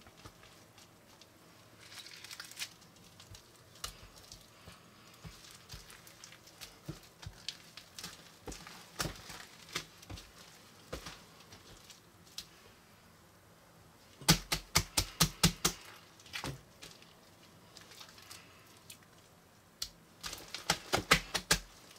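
Hands squeezing and patting a large mass of mixed slime and foam-bead floam: scattered sticky clicks and crackles, with two quick runs of sharp slaps, about six a second, around the middle and near the end.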